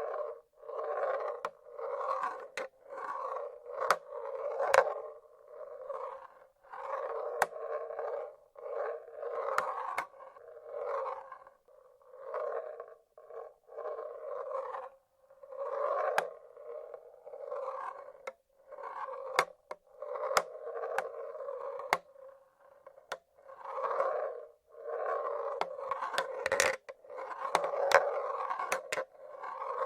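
Marbles rolling along the tracks of a wooden marble-run machine in a string of short runs, broken by sharp clicks as they knock against the wood and each other.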